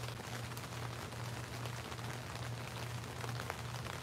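Steady rain, an even hiss with many individual drops ticking and pattering, over a steady low hum.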